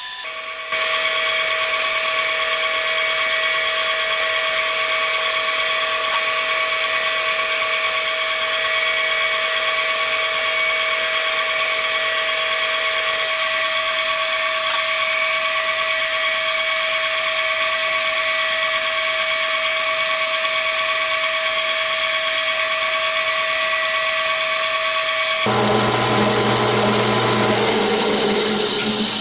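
Metal lathe running steadily while its tool bit turns grade 5 titanium under coolant: a loud, even whine made of several fixed tones. About 25 seconds in the sound shifts to a lower, rougher hum.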